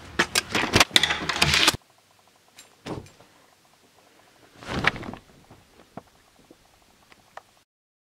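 A front door being unlocked and opened: a quick run of clicks and knocks from the key, latch and handle in the first two seconds. A faint click follows, then a soft thump about five seconds in, and the sound cuts off a little before the end.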